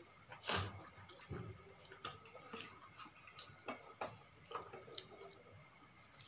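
Close-up eating sounds of spicy noodles: wet slurps and mouth smacks as strands are sucked in, with small clicks of forks against plates. The loudest is one longer slurp about half a second in.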